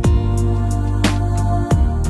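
Background music: a slow song with sustained bass and chords, guitar, and a steady beat.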